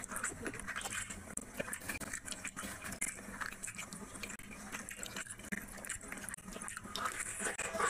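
Close-miked chewing of a handful of rice and curry, with wet smacking and clicking mouth sounds. Near the end, fingers squelch through rice and curry on the plate.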